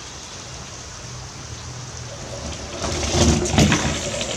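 Mamod SL1 live-steam toy locomotive hissing steam, growing louder with irregular spurts of steam from about three seconds in as it is set going in reverse.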